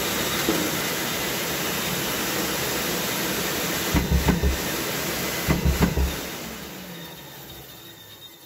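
Pégas fine-cut band saw running with a steady hum and hiss, with several low thumps about four to six seconds in. It then winds down: the pitch falls and the noise slowly fades away.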